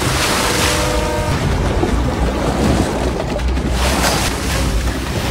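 Alligator thrashing in the water as it is hauled up on a line, with heavy splashing in repeated surges.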